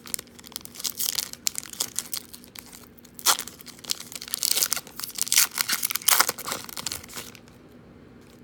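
The foil wrapper of a 2018 Donruss football card pack crinkling and being torn open by hand: a dense run of crackles and rips that stops about seven seconds in.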